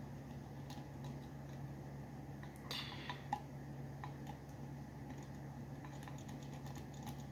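Faint metallic clicking and scraping of a homemade paperclip rake being worked in a cheap five-wafer tumbler lock, with a short cluster of clicks about three seconds in, over a steady low hum.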